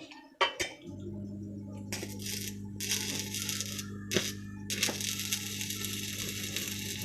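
Electric arc welding: a couple of sharp clicks, then the welding machine's steady low hum sets in about a second in, and the arc's dense crackle starts about a second later, breaks off briefly around four seconds and resumes.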